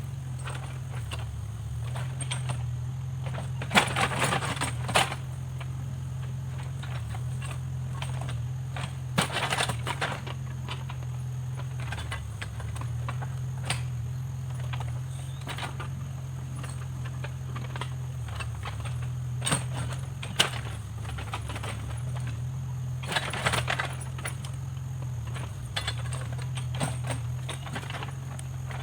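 Backhoe loader's diesel engine running steadily with a low hum, with occasional knocks and rattles.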